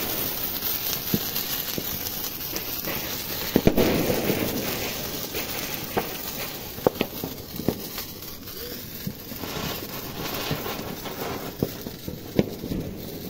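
Ground firework fountains hissing steadily as they spray sparks, with scattered sharp cracks and pops; the loudest pair of cracks comes about four seconds in.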